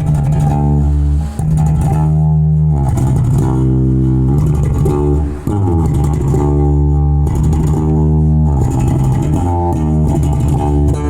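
Sterling by Music Man Ray35 five-string electric bass, fitted with an upgraded pickup, played as a line of plucked, held notes that change pitch about every second or so, with two brief gaps between notes.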